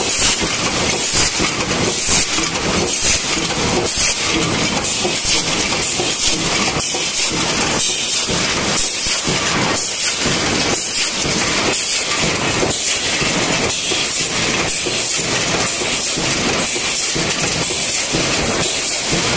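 Tin-can end production line running: a sheet-metal press stamps at about one stroke a second over a steady high hiss and rattle of the line's machinery.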